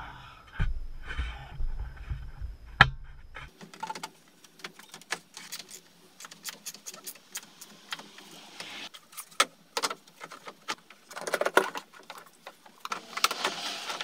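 Hands working on plastic and metal parts in a car's engine bay: many short clicks, taps and rattles of parts and tools being handled, with busier clusters late on.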